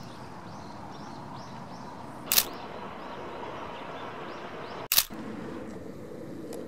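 Single-lens reflex camera shutter firing in two brief continuous-shooting bursts, about two and a half seconds apart, over a steady low background hiss with faint high chirps.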